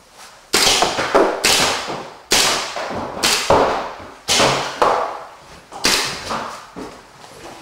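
Paintball markers firing in an indoor arena: about a dozen sharp, irregularly spaced pops, each trailing off in echo.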